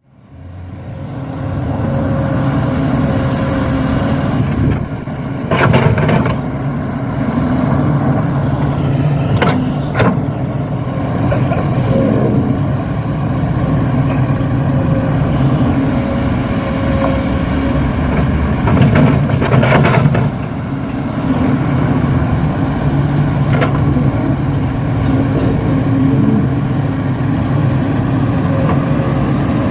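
Heavy-equipment engine sound running steadily, with short louder surges about six, ten and twenty seconds in.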